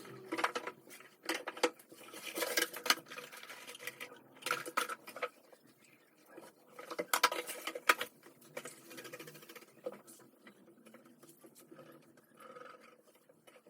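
Rustling and scraping with scattered light clicks and knocks: objects being handled and moved about by hand, busiest about two and a half seconds in and again around seven to eight seconds.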